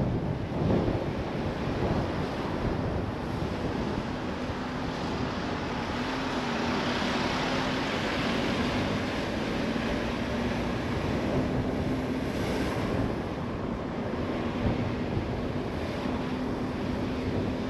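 A car driving: steady road and wind noise with a faint, steady low hum underneath.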